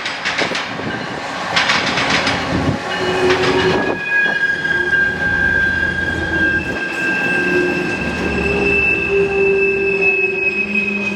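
Loaded ethanol tank-car freight train rolling past, its wheels clacking over rail joints in quick repeated clicks. About four seconds in, steady high-pitched wheel squeal takes over.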